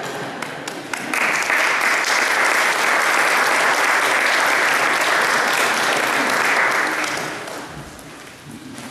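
Congregation applauding: a few scattered claps, then full applause from about a second in, which dies away near the end.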